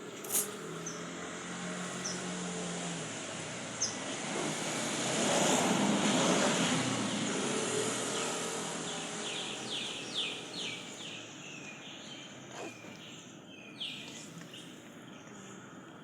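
Outdoor background noise that swells and fades as a vehicle passes about a third of the way in, over a faint low steady hum. A run of short, high, falling chirps comes a little past the middle, with a few scattered clicks.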